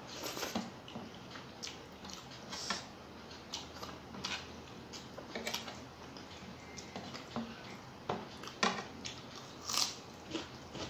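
Close mouth sounds of a person eating rice by hand: chewing and wet lip smacks in irregular short clicks, a few each second.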